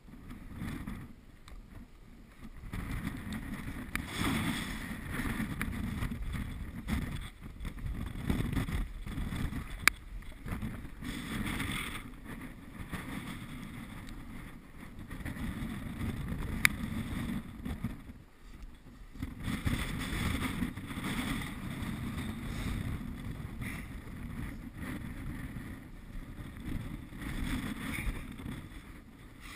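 Gusty wind rumbling on a camera microphone, swelling and dropping every few seconds, with two sharp clicks about a third of the way in and again just past halfway.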